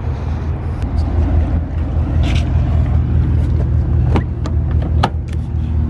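Car door handle pulled and its latch releasing: two sharp clicks about four and five seconds in, over a steady low rumble.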